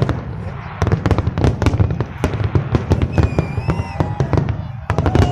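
Fireworks display: a dense, continuous crackle of bangs and pops from many shells bursting, with a few high whistling tones past the middle.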